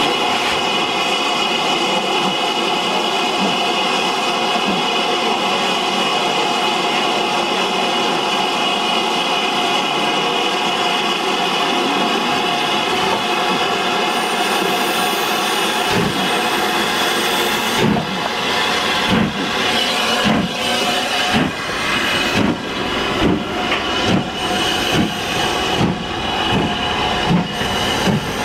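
BR Standard Class 5 steam locomotive No. 73082 standing with a steady hiss of escaping steam. A little over halfway through it starts its train away: sharp exhaust chuffs come about one and a half a second, over the continuing hiss.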